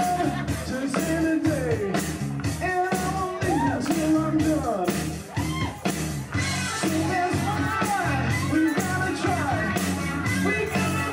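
Live band music: a man singing over a steady drum beat and guitar. The sound of the mix changes about six seconds in.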